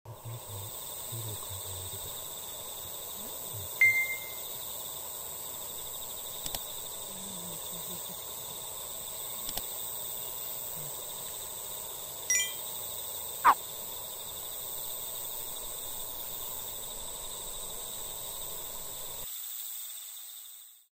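Evening outdoor nature ambience: a steady high insect drone over faint background noise, broken by a few short bird calls, the loudest a quick call about 13 seconds in. It fades out near the end.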